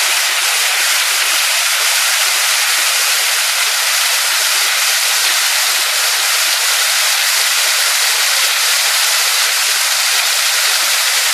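Water cascading down an artificial rock waterfall: a steady, even rush of falling and splashing water.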